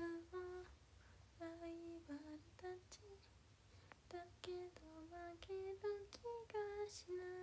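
A young woman humming a tune softly, a string of short held notes with brief breaks between them.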